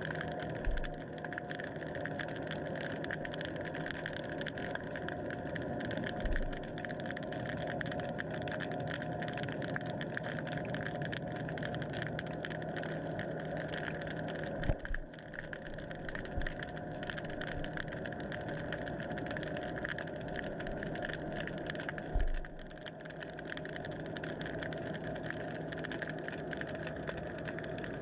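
Steady mechanical motor hum with several held tones, picked up underwater, broken by a handful of dull low thumps spread through the stretch.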